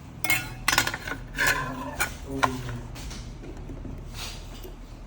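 Hands working on the parts of a cordless circular saw: several sharp clicks and rubbing scrapes in the first two and a half seconds, then quieter handling.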